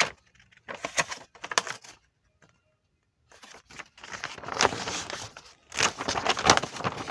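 Paper and packaging being handled, crinkling and rustling, with a few sharp clicks about a second in and a near-silent pause in the middle.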